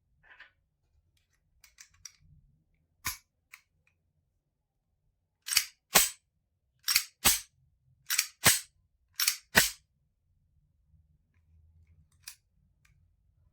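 Pistol slide being racked by hand four times in a row, each time a pair of sharp metallic clacks as the slide is pulled back and the recoil spring snaps it forward. A single lighter click comes a few seconds before the first rack.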